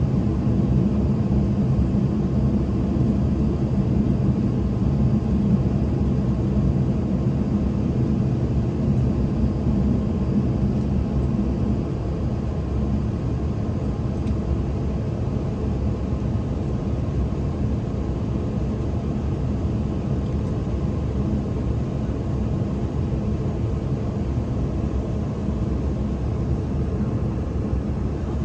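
Steady cabin hum of an Embraer E190-E2 taxiing with its Pratt & Whitney geared turbofan engines at idle, heard from inside the passenger cabin. The hum drops slightly about twelve seconds in.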